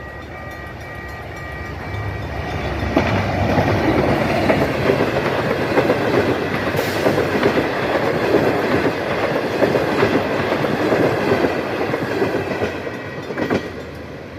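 A train passing close by: the rumble and clatter of wheels on the rails build up about two seconds in, stay loud for most of the time, and ease off near the end.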